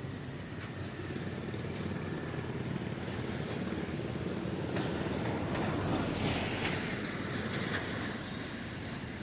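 Street noise with a motor vehicle passing, its rumble swelling to a peak about six seconds in and then easing.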